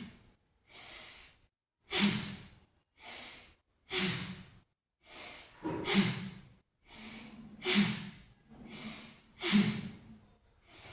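A man doing a rhythmic pumping breathing exercise, breathing forcefully in time with his arms. There is a sharp, loud breath about every two seconds, five in all, with a softer breath between each.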